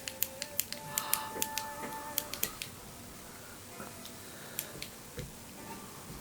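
Rapid small plastic clicks of buttons being pressed on a Sony MiniDisc player's wired remote control while adjusting the volume, about three or four a second for the first two and a half seconds, then only a few scattered faint clicks.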